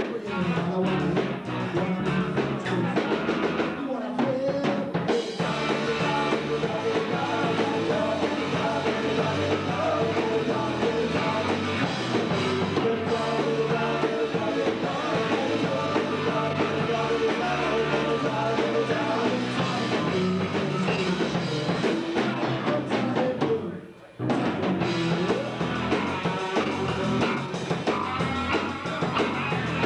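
Live rock band playing with electric bass, drum kit and electric guitar. About three-quarters of the way through, the band stops for a split second, then comes straight back in.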